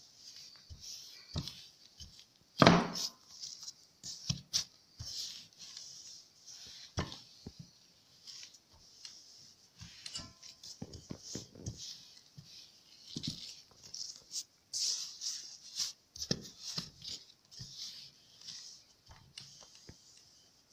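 Wooden rolling pin rolling out yeast dough on a floured table: repeated soft rubbing swishes with irregular light knocks as the pin is pushed and lifted, and one sharper knock about two and a half seconds in.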